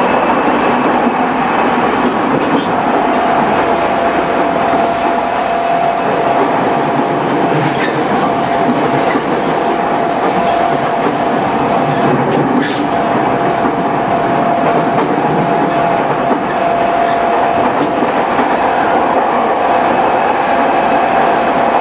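JR East E217 series electric train with a Mitsubishi IGBT-VVVF inverter running at a steady pace: continuous rolling noise with a flat, steady whine through most of it and a few knocks from the rails. A thin high tone joins in for several seconds in the middle.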